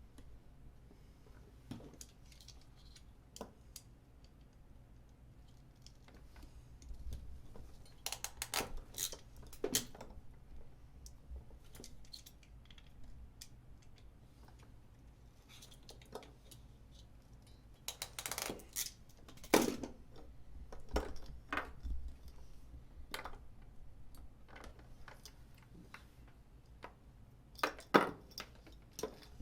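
Scattered clicks and clacks of hand tools and wire being handled during crimp-connector wiring work, with the sharpest knocks about two-thirds of the way in and near the end.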